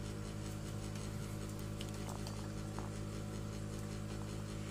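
Steady low electrical hum of aquarium pump equipment running, with a few faint ticks over it.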